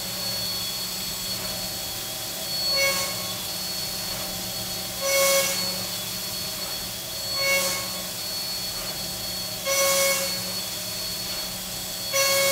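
2-inch Stellram shell mill spinning at 11,000 RPM, face-milling the end of a large metal part: a steady spindle hum and whine. It swells into a louder, higher-pitched cutting noise five times, in short bursts about every two and a half seconds.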